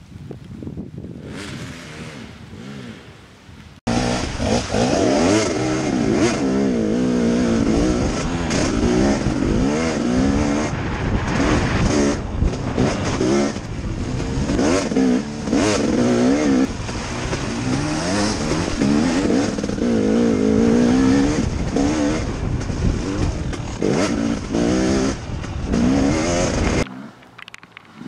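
KTM 250 XC two-stroke dirt bike engine being ridden hard. It is faint and distant for the first few seconds. From about four seconds in it is loud and close, as if from on the bike, its pitch climbing and falling over and over with the throttle. It drops away suddenly near the end.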